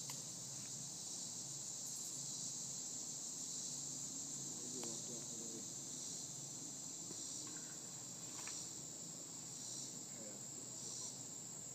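Steady high chorus of insects in the background.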